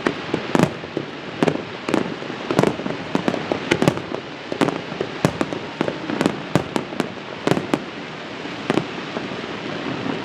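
Fireworks bursting in an irregular, rapid string of sharp bangs, several a second, over a steady rumbling wash of explosions.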